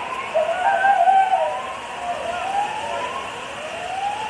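Siren or alarm sounding in repeated rising sweeps, about one a second, with a second wavering tone over it for the first second or so.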